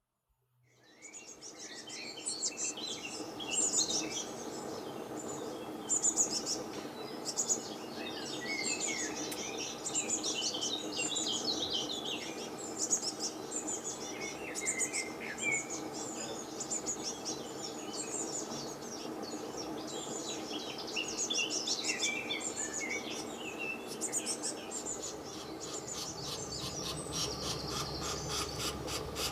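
Many small birds chirping and singing at once, a dense chorus of short overlapping twitters and trills, over a steady low hum.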